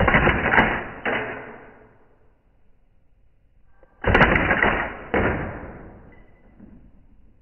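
Tokyo Marui MK18 gas blowback airsoft rifle firing on full auto, slowed down: two bursts about four seconds apart. Each burst holds two shots about a second apart, and each shot is followed by a long fading tail.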